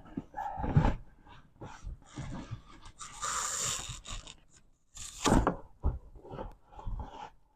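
Irregular handling noises from working inside a car door: short knocks, clicks and rustling scrapes as a rubber grommet and trim parts are pushed back into place, with a longer hissing rustle a few seconds in.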